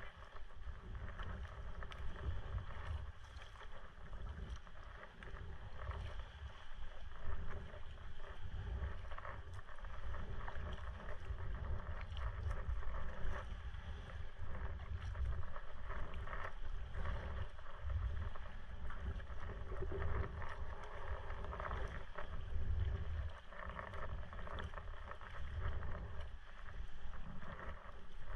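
Water splashing and lapping as a Prijon Seayak 500 LV sea kayak is paddled, the paddle blades dipping into the water in uneven strokes, with a fluctuating low wind rumble on the microphone.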